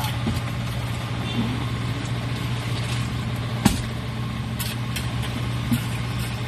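Heavy engine running steadily with a low, even drone. A sharp knock comes about three and a half seconds in, and a lighter one near the end.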